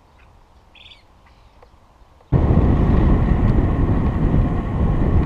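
A few faint bird chirps over quiet; about two seconds in, a cut to loud, steady wind rush on the microphone while cycling along a road.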